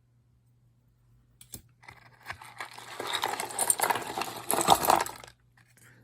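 Jewelry being rummaged through by hand in a box: a single click about a second and a half in, then about three seconds of clinking and rustling, loudest near the end, that stops abruptly.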